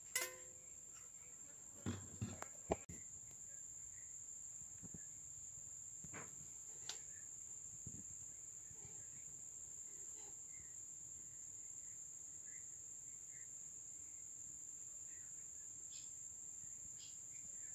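Crickets chirring in one steady high-pitched drone, with faint scattered chirps. About two seconds in come a few sharp knocks, as from something being handled or set down.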